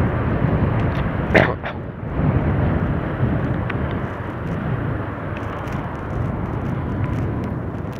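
Motorcycle riding in traffic: a steady rush of wind and road noise over the microphone, with the engine running underneath. A brief sharp sound cuts through about a second and a half in.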